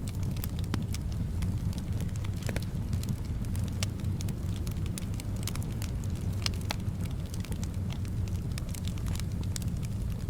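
Wood fire in a fireplace crackling, with frequent sharp, irregular pops over a steady low rumble of soft wind.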